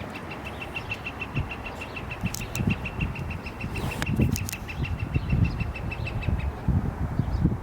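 A bird chirping in a fast, even series of high notes, about seven a second, that stops shortly before the end, over low irregular thumps and rumble.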